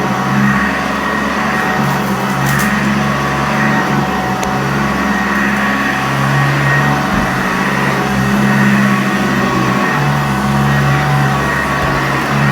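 Sanitaire upright vacuum cleaner running steadily on carpet, its motor humming and its brush roll turning, with a brief high crackle about two and a half seconds in.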